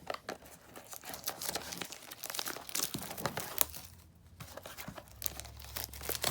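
Packaging of a trading-card blaster box being torn open and handled: irregular crinkling and tearing of plastic wrap and cardboard.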